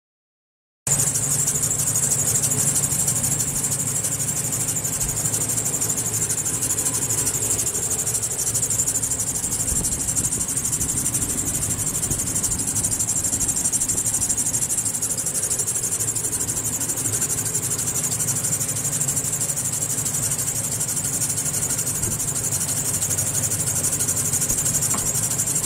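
1999 Chevrolet Silverado 1500's 4.3-litre V6 idling steadily in the open engine bay, starting about a second in, with a steady high-pitched hiss over the engine.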